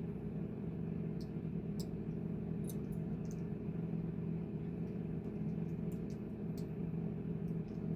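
Plastic Lego bricks being handled and pressed together: scattered short, sharp clicks, over a steady low hum.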